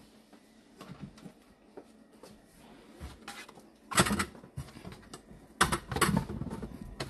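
Shoes being handled on shoe-closet shelves with metal rails: a few faint clicks, then loud knocks and clatter about four seconds in and again near six seconds.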